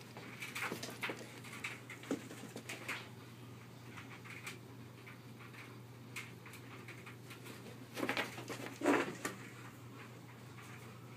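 A dog's paws scrabbling and padding on carpet in scattered short taps and scuffs as it chases a laser dot, with two louder short sounds from the dog about eight and nine seconds in.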